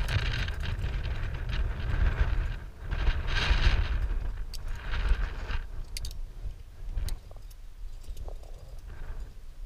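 Climbing gear clinking and rattling, carabiners and quickdraws on a lead climber's harness, with scattered sharp metallic clicks. Wind rumbles on the helmet-mounted microphone through the first half and dies down about halfway through.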